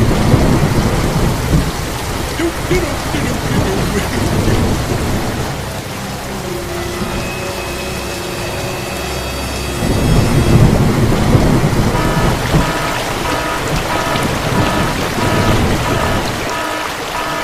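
Heavy rain falling, with deep thunder rumbles at the start and again about ten seconds in. In the second half a quick repeating pattern of higher tones joins the rain.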